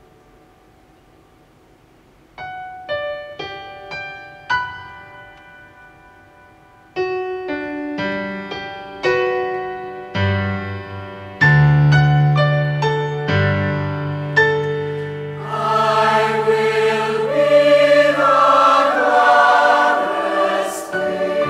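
Piano playing a slow introduction, spaced single notes growing into fuller chords with deep bass notes. About two-thirds of the way through, a mixed youth choir comes in singing over the piano.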